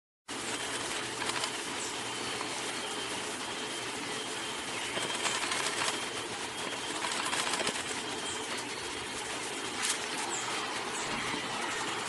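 Steady outdoor hiss that cuts in abruptly just after the start, with a faint thin high tone running through it and a few brief, faint high chirps.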